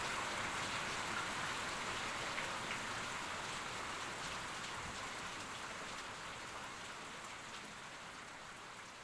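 Heavy rain falling: a steady hiss with scattered drop ticks, growing steadily quieter as it fades out.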